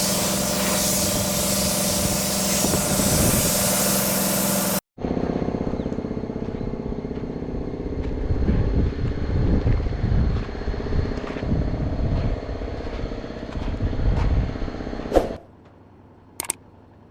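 Steady hissing machinery noise with a hum, cut off sharply about five seconds in, then a vehicle engine running unevenly for about ten seconds, which stops near the end, leaving a few clicks.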